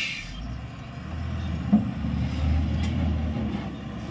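Heavy tipper truck's diesel engine running and revving up about half a second in, with a short hiss at the very start and a single sharp knock a little before the middle.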